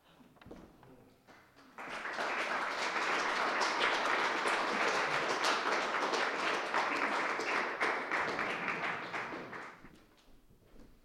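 Small audience applauding: a few scattered claps at first, then about eight seconds of steady clapping that dies away near the end.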